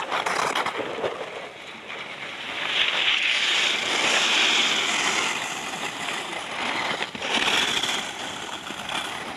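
A giant slalom racer's skis carving past close by on firm snow, a scraping hiss right at the start. Louder stretches of rushing hiss follow in the middle and near the end.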